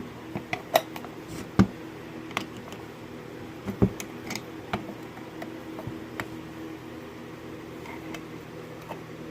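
Scattered sharp clicks and knocks of a metal gate lock being handled while its Euro cylinder is worked at to slip it out, over a steady low hum.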